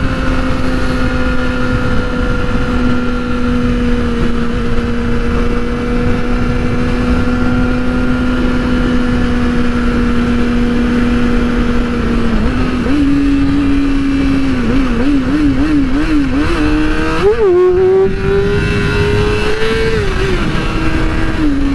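Yamaha R6 inline-four sport-bike engine under way, holding a steady note for about twelve seconds. Over the second half the revs then waver up and down, climb sharply twice and drop back, with steady wind noise underneath.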